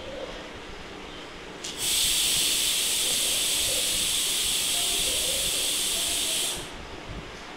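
A loud, steady hiss starts about two seconds in and cuts off sharply nearly five seconds later.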